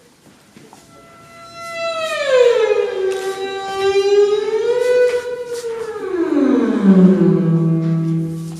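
A long, eerie wailing tone played as a stage sound effect. It slides down in pitch, swells back up a little, then sinks low and holds.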